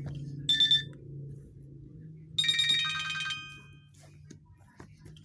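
Nokia 105 mobile phone ringtone playing through the phone's small speaker: a short high electronic note about half a second in, then a burst of bright electronic tones lasting about a second, the pattern repeating as a ring. A faint low hum runs beneath.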